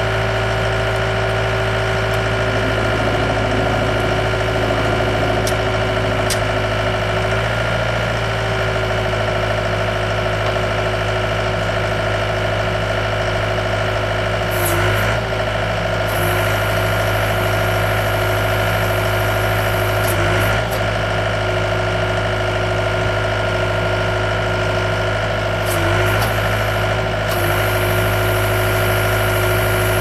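Gehl skid steer loader's engine running steadily near idle. A few times the engine note dips briefly as the hydraulics swing and tilt the grader blade.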